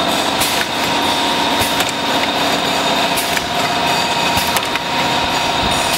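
Semi-automatic rotary tube filling and sealing machine running: a steady mechanical hum with several held tones, broken by irregular sharp clicks from its moving parts.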